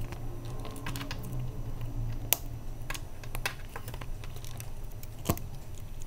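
Scattered light clicks and taps from an iPhone's glass display and metal frame being handled and closed together, with two sharper clicks, one a little over two seconds in and one about five seconds in. A low steady hum runs underneath.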